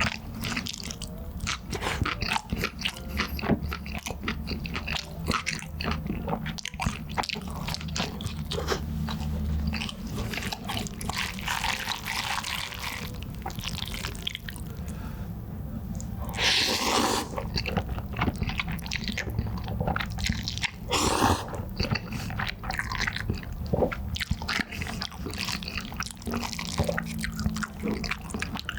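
Close-miked mouth sounds of someone eating Chicago-style cheese and meatball pizza: continuous wet chewing with many small smacks and clicks. Two louder noisy bursts come in the second half.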